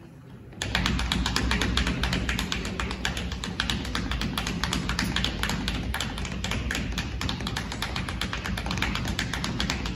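Several people rapidly drumming their fingers and hands on tabletops, a dense, fast, continuous tapping that starts about half a second in, with a low rumble underneath.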